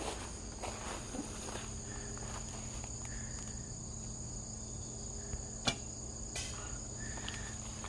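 Steady high-pitched insect chorus, with a sharp snap just past the middle and a second click shortly after, from a traditional bow being shot.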